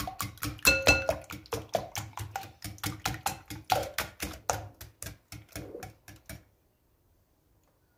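A wire whisk beats eggs and condensed milk in a glass bowl, its wires clicking quickly against the glass, about five clicks a second, with an occasional brief ring from the bowl. The whisking stops about six and a half seconds in.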